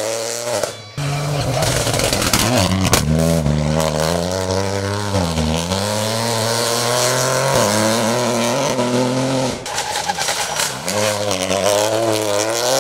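Peugeot 208 rally cars at full throttle through a tarmac hairpin. The engine note rises and falls as the driver lifts and changes gear, dips sharply about five seconds in and climbs again as the car pulls away. The first car's sound cuts off abruptly about a second in, where the next car's engine takes over.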